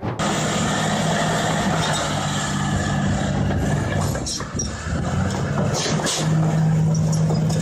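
A heavy machine's engine runs steadily with a constant low hum and a wide mechanical noise, with a few short knocks or clanks about four to six seconds in.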